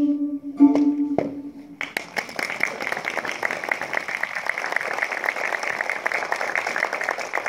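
Last held notes of a short piece on a digital piano set to a string voice, stopping about a second in. Then audience applause starts and continues steadily.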